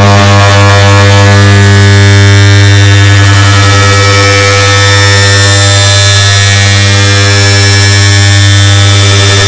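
Air conditioner start-up sound, digitally stacked and amplified until it is a loud, distorted, steady buzzing hum with a heavy low drone. It cuts in abruptly after a brief silence.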